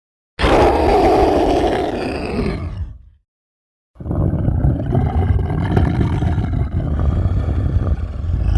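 Large-demon monster roar sound effect: a deep, gritty roar lasting about three seconds that fades out. After a second of silence a second, longer roar starts and is still going at the end.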